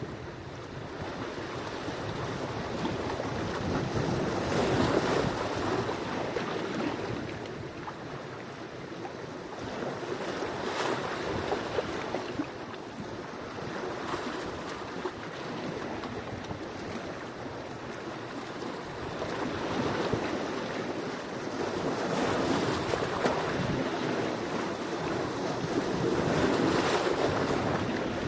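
Sea waves breaking and washing on the shore, in slow swells that rise and fall every few seconds.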